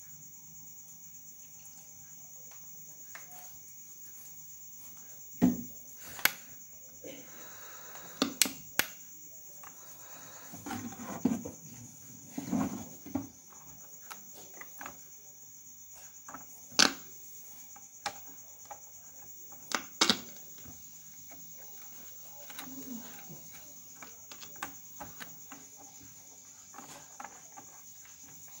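Scattered short knocks and clicks as hands handle an opened portable FM radio, its case, circuit board and wiring, over a steady high-pitched chirring in the background.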